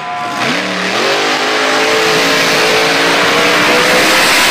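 Monster Energy monster truck's supercharged V8 revving as the truck accelerates. Its pitch climbs about a second in, then holds at high revs.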